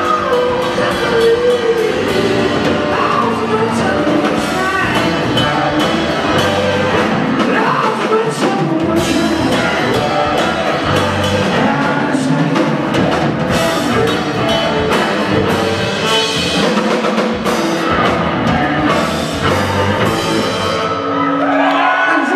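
Live rock band playing: electric guitar, bass guitar, drum kit and keyboards, with the drums hitting steadily under gliding guitar notes.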